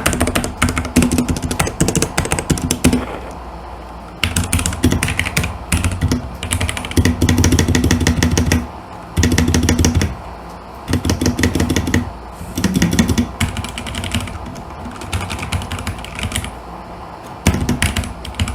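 Royal Kludge RK61 60% mechanical keyboard, fitted with Coral Sea keycaps, being typed on in fast runs of keystrokes with short lulls between runs. This is a sound test of the modded board.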